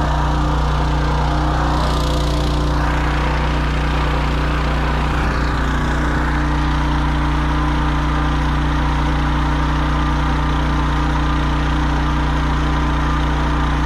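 Small engine of a 3-inch portable water pump running steadily at an even pitch, pumping a well clean of rusty sludge from its bottom, with water gushing out of the discharge hose.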